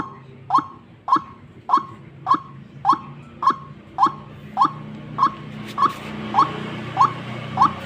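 White-breasted waterhen (ruak-ruak) lure call: a short, sharp note repeated very evenly, about every 0.6 seconds, the steady repeated call used to draw wild waterhens to a trap. A low hum and hiss rises in the background from about halfway through.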